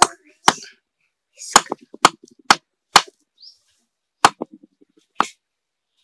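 A new shaft being knocked into a table fan's rotor against a wooden block: about eight sharp, irregularly spaced knocks, some trailing a brief ring.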